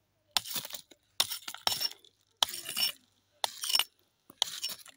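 A metal hand tool striking and scraping against rock, in five separate bursts about a second apart. Each burst is a sharp clink followed by a short gritty crunch of stone and loose gravel.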